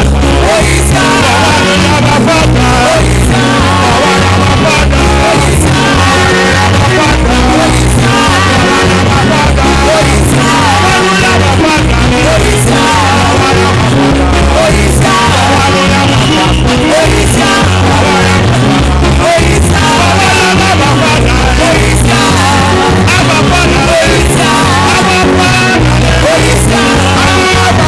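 Music with singing over a repeating bass line and a steady beat.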